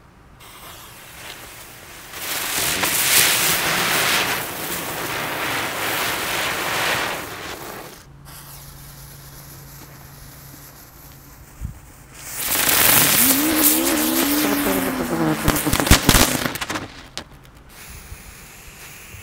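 Small novelty fireworks burning. First a YOYO hisses and sprays sparks for about six seconds. After a short lull a Divlji Bumbar (wild bumblebee) hisses with a buzzing whistle that rises and falls, and it ends in a few sharp pops.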